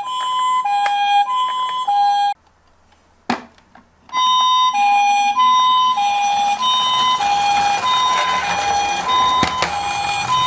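Toy ambulance's electronic two-tone hi-lo siren, the Japanese-style pee-po, alternating a high and a low note about every half second. It cuts out about two seconds in, a single click sounds in the gap, and the siren starts again about four seconds in.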